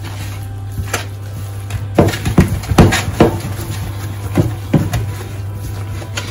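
Knocks and slaps of a hand kneading soft cookie dough in a mixing bowl: a quick run of about eight sharp knocks in the middle, over a low steady hum.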